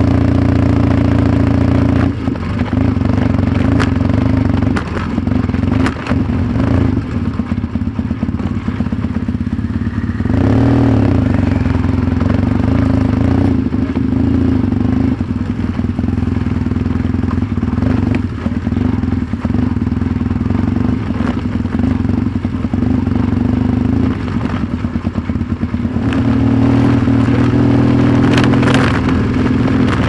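Yamaha XTZ 750 Super Ténéré's parallel-twin engine running at a steady throttle while riding a rough dirt track, with frequent knocks and clatter from stones and bumps. The revs rise near the end.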